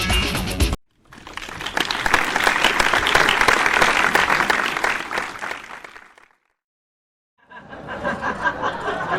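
Background music cuts off abruptly, then a crowd applauds, swelling and fading away over about five seconds. After a short silence, voices start up near the end.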